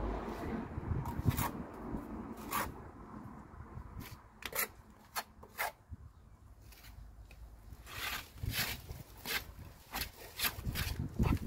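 Steel pointing iron scraping lime mortar off a trowel and pressing it into brick joints: a series of short, irregular metal-on-mortar scrapes and clicks, coming more often in the second half.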